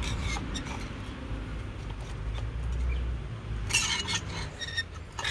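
Light metal-on-metal clinks as the perforated steel power steering filter element and its washer are slid and seated onto the filter shaft of a Massey Ferguson tractor. A few scattered clinks early on, then a louder cluster about four seconds in with brief ringing, over a steady low rumble.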